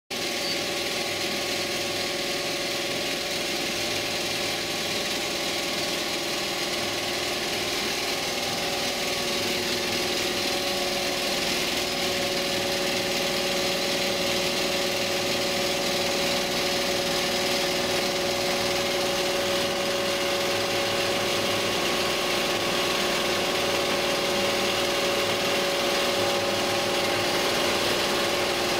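Richpeace multi-needle rotary hook quilting machine running at full speed: a steady, rapid mechanical clatter from its row of needles and rotary hooks, with a steady tone underneath.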